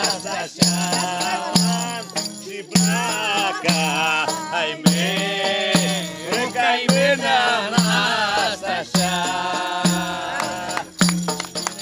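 Live, unamplified Greek folk music: a defi frame drum with jingles keeps a steady beat about once a second under a wavering, ornamented clarinet melody with singing voices.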